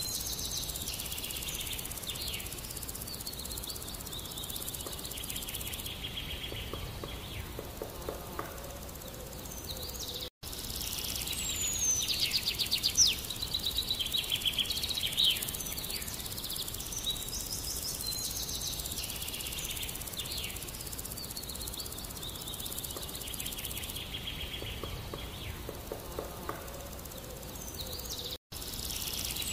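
Birds chirping and whistling, with rapid trilling calls, over a steady outdoor hiss. The sound drops out for an instant twice.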